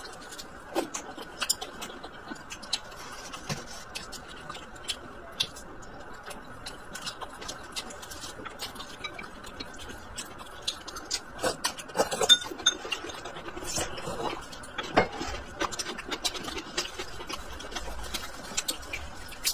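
Close-up eating sounds: chewing and mouth smacks on a pan-fried scallion pancake and stir-fried greens, with chopsticks clicking against ceramic dishes. Many short clicks throughout, a few louder ones about twelve and fifteen seconds in, over a steady faint hiss.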